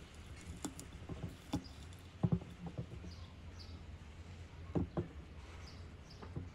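Irregular soft knocks and clunks of boiled corn cob pieces being pressed into a large glass jar and against one another, loudest a little over two seconds in and twice near five seconds. A few faint bird chirps are heard in the background.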